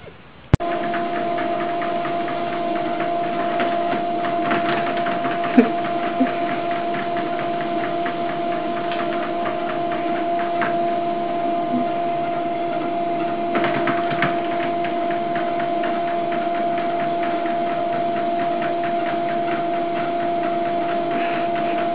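A steady machine hum with a constant tone over an even rushing noise, switched on abruptly with a click about half a second in.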